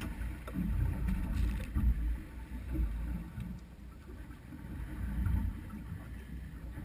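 Low, uneven rumble of wind and water against a small drifting boat, with a few faint clicks.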